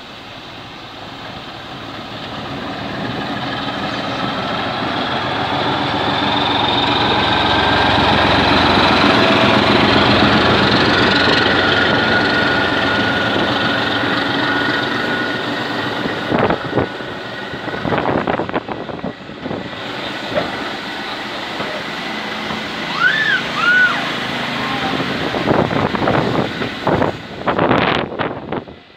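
A diesel locomotive hauling a passenger train passes on the adjacent track. Its engine swells to a loud peak about ten seconds in, with a steady whine over the roar. The coaches then roll by with wheels clicking over the rail joints and a couple of brief high squeaks.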